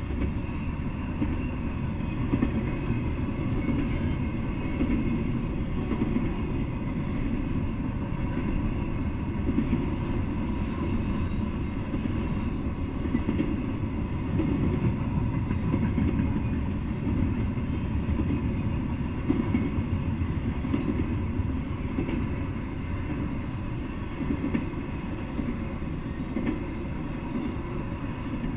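Double-stack intermodal freight train passing: the steady rumble of its well cars' steel wheels rolling over the rails, with small irregular knocks, heard through a small camera microphone.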